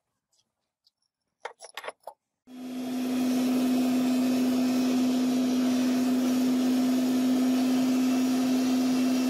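Homemade furnace running at full heat: a loud, steady blower whir with a strong hum, coming in about two and a half seconds in after a few soft clicks.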